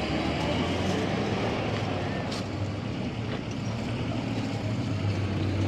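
Motor vehicle engine running steadily under street traffic noise, a low hum beneath a constant wash of sound.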